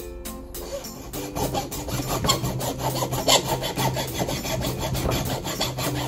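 Hand saw rasping back and forth through the hard shank of a cured Iberian ham leg. The strokes start about a second in and grow louder, with the loudest stroke at the very end.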